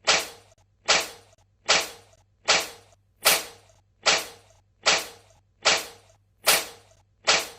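A cat sneezing over and over, about ten short sharp sneezes, each one alike and evenly spaced at a little more than one a second.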